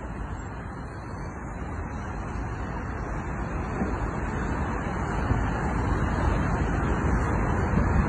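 Road traffic noise from a busy multi-lane highway: a steady rush of passing cars that grows gradually louder.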